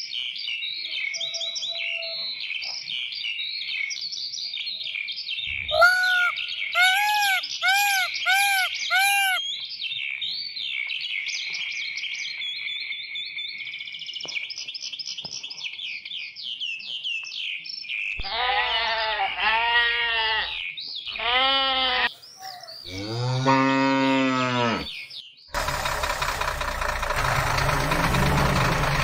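Birds chirping and twittering, with a run of five short, higher-pitched animal calls about six seconds in. From about eighteen seconds, several long cattle moos, the last ones deeper. Near the end a truck engine cuts in suddenly and runs steadily.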